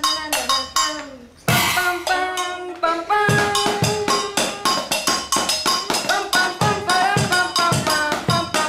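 Music with a quick, steady beat and pitched instrumental notes. It drops away briefly, then comes back in loud and full about a second and a half in, and settles into the beat again.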